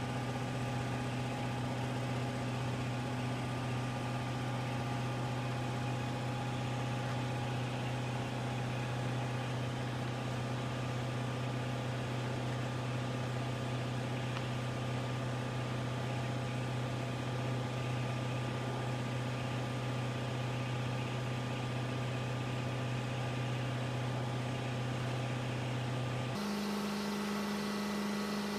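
Steady hum of a running machine motor, even and unchanging, that switches abruptly to a different, higher-pitched hum near the end.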